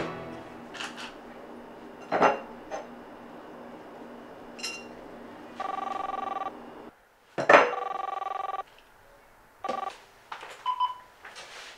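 A phone ringing twice, each ring a steady two-tone burst of about a second. Scattered knocks and clatters sound around the rings, the loudest just before the second ring.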